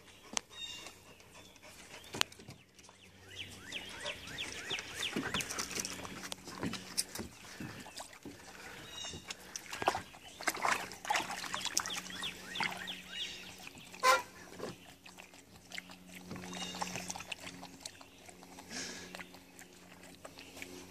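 Water splashing and sloshing in a plastic kiddie pool as a schnauzer wades about and settles into it, in irregular bursts. One sharp knock about two-thirds of the way through is the loudest sound.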